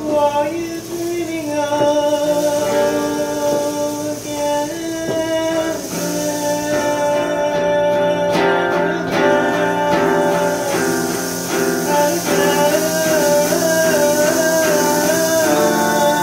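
Live acoustic music: guitar playing chords, with a held, wavering melody line over it.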